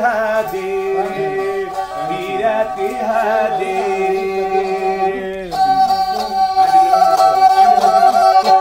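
A man singing a Nepali folk song to his own bowed Nepali sarangi. About five and a half seconds in the voice stops and the sarangi carries on alone with long held notes.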